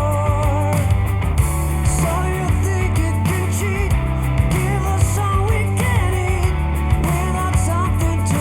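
Rock music with drums, bass and electric guitar, loud and steady, with regular drum hits, played back through Bowers & Wilkins PX7 wireless headphones.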